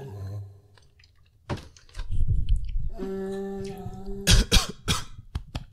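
A man humming a steady held note, then coughing and clearing his sore throat several times.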